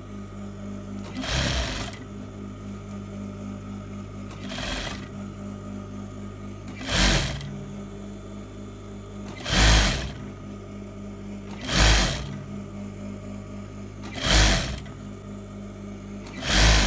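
Sewing machine stitching a hem in short bursts, seven in all, about one every two to three seconds, over a steady low hum.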